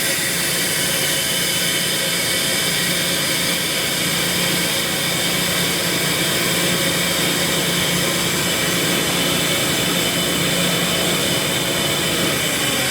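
Ingersoll Rand SSR-EP60 60 hp rotary screw air compressor running steadily unloaded, with a constant hum and air rush, while its sump pressure bleeds off before shutdown. At the very end a hissing rises.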